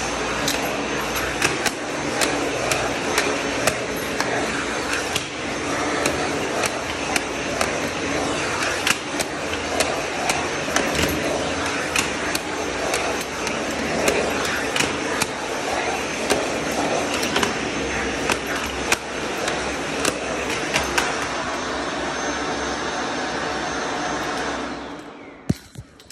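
Vacuum cleaner running steadily as its floor head is worked over tiled stair steps, with frequent sharp clicks and taps. Near the end it is switched off and the motor runs down, followed by a couple of knocks.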